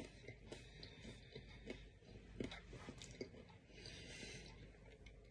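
Near silence, with faint mouth clicks and chewing from people eating soft bread rolls, and a soft breath about four seconds in.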